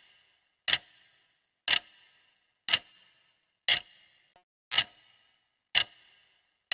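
Clock ticking, one sharp tick each second, each with a brief ringing tail.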